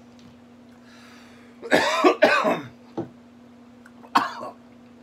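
A man coughing from the heat of a very hot green chili sauce: a breath in, two strong coughs in quick succession, then a short cough and one more near the end.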